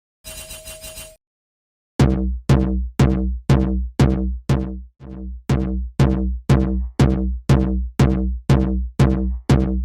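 Electronic music: a drum-machine beat of about two deep bass kicks a second, each with a falling sweep, starting about two seconds in after a brief faint sound.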